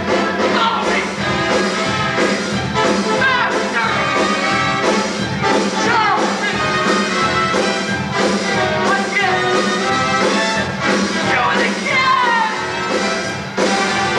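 Broadway theatre pit orchestra playing swinging, brass-led dance music with a steady beat.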